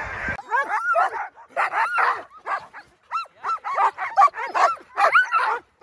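Several Alaskan husky sled dogs yipping and barking excitedly, with quick, overlapping, high-pitched yelps that rise and fall. The yelps start abruptly about half a second in.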